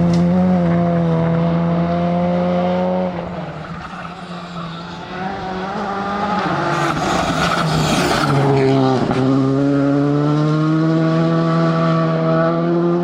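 Rally car engine at high revs: held steady for about three seconds, then backing off, with a short rush of tyre or gravel noise near the middle, then pulling hard again with a slowly rising note from about nine seconds in.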